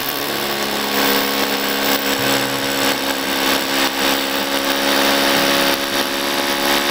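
Bosch GBH 3-28 DRE corded 800 W SDS-plus rotary hammer drilling into a concrete block, running steadily and loud without a break.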